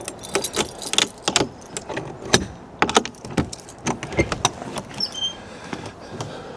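A rapid, irregular run of clicks, knocks and clatter, like objects being handled, easing off about five seconds in, followed by a few short high tones.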